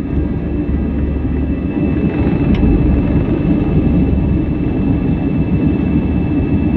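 Airbus A320 jet engines at takeoff thrust heard from inside the cabin during the takeoff roll: a loud, steady rumble with a steady high whine over it. A single short click about two and a half seconds in.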